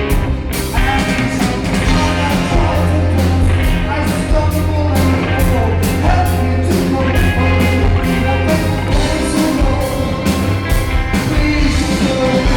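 Live band playing an instrumental passage of a pop-rock song, with a steady drum beat of about two a second under a strong bass line.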